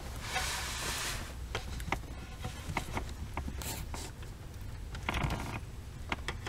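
Screwdriver and ring-terminal wires scraping and clicking against an inverter's terminal block as the ground wire is screwed down, with scratchy bursts near the start and again about five seconds in, over a steady low hum.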